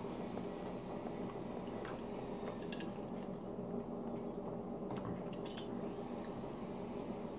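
Fork and knife clicking and scraping on a plate while French toast is cut up, a handful of light clicks over a steady low background hum.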